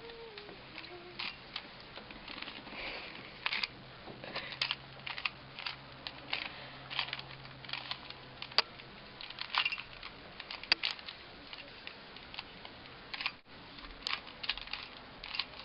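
A Rubik's cube being turned by hand: an irregular run of quick plastic clicks and clacks, several a second, as its layers are twisted.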